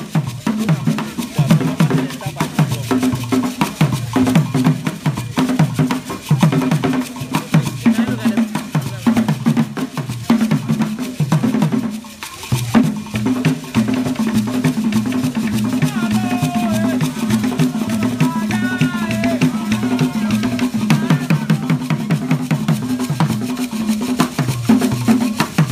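Live traditional hand drumming: wooden drums played in a fast, evenly repeating rhythm, breaking off briefly about twelve seconds in before carrying on.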